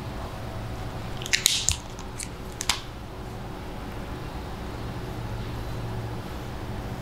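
Marker squeaking and scraping across a whiteboard in a few quick strokes, from about a second in to nearly three seconds, over a steady low room hum.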